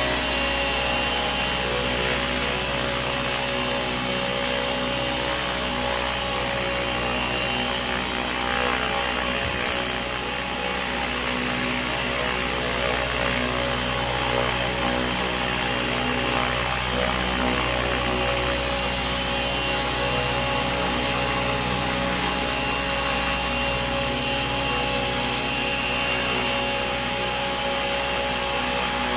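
Radio-controlled Align T-Rex 600 ESP helicopter in an EC145 scale body running at a steady rotor speed: an even whine of the electric motor and gearing over the rotor noise.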